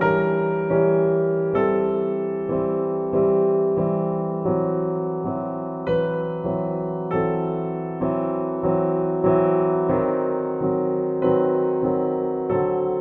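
Background piano music: slow chords, a new one struck about every three quarters of a second, each fading away before the next.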